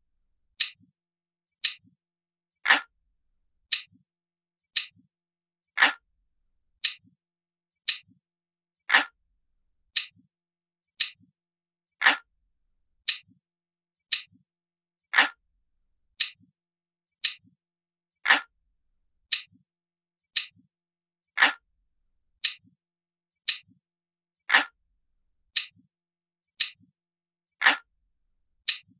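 Glass-like clock ticking sound effect: one crisp, bright tick about every second, with every third tick a little louder and fuller.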